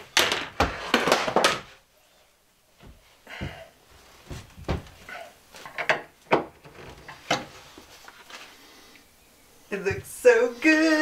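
Wooden cabinet drawer fronts and doors being fitted: a quick burst of knocks and clatter on the plywood cabinet, then scattered taps and clicks of hands and a screwdriver on the wood. A voice comes in near the end.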